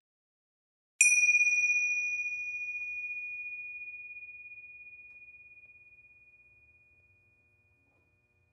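A single bell-like ding, the chime of the outro logo, struck once about a second in and ringing out as it fades over about five seconds.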